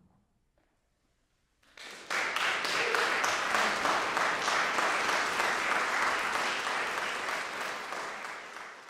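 Audience applause breaking out after a short hush, less than two seconds in, then holding steady and thinning out near the end.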